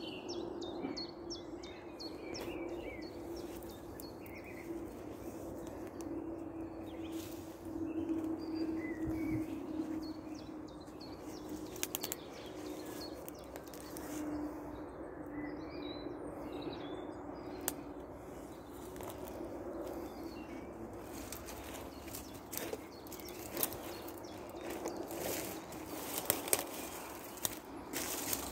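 Small birds chirping in scattered short calls over a steady low hum. In the last several seconds, crisp cracks and crunches of footsteps through dry, dead bramble stems.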